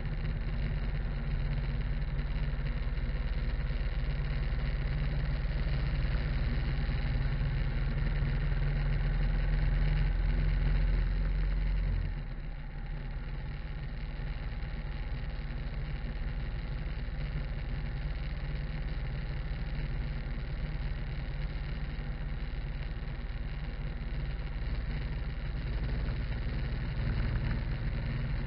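Harley-Davidson V-twin motorcycle running down the road, its engine note mixed with road and wind noise at a camera mounted low by the front wheel. The sound builds for about ten seconds, drops suddenly about twelve seconds in, then carries on steadily.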